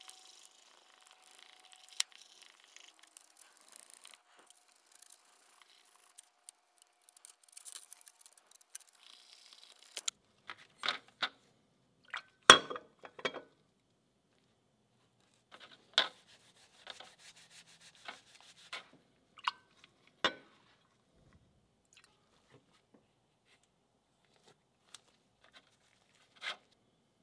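Gloved hands rubbing cold bluing solution onto a bare steel rifle part with a swab: a faint rubbing hiss. This is followed by scattered sharp clicks and knocks as the swab, steel wool and part are set down in and picked up from a plastic tray, the loudest about halfway through.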